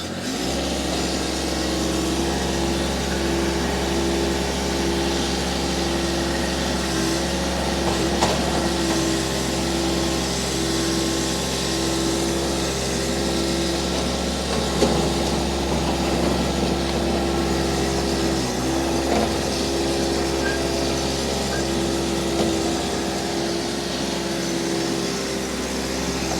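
Toro Dingo TX1000W mini skid steer's Kubota D1305 three-cylinder diesel running steadily just after start-up, with a steady whine over it that wavers in level, and a few short knocks.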